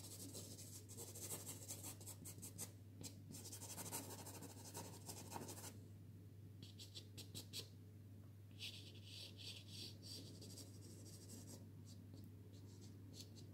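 Soft pastel stick scratching and rubbing across pastel card in faint strokes. A long run of strokes comes first, then shorter bursts with pauses between them.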